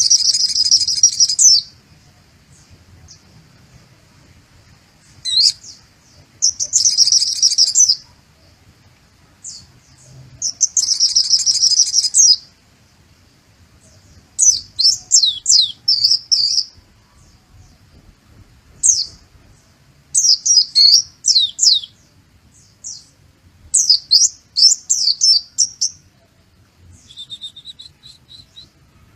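A white-eye (pleci) singing loud bouts of high-pitched song that imitates a sunbird (kolibri muncang, also called sogok ontong). Three dense chattering phrases come first. Then come runs of quick, sharply falling notes, and a softer phrase near the end.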